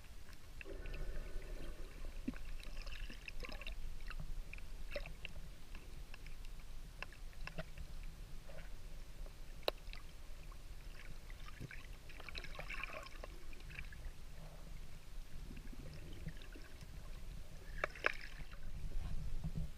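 Underwater sound in shallow seawater: a steady low, muffled rumble with scattered sharp clicks and a few bursts of bubbling, the loudest near the end.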